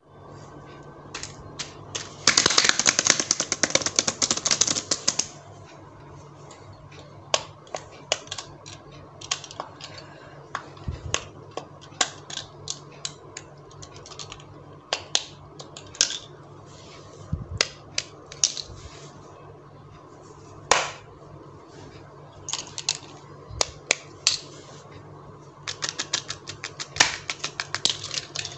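Plastic fidget toys being handled, giving sharp clicks and taps. A dense run of rapid clicking starts about two seconds in and lasts about three seconds, and a shorter run comes near the end.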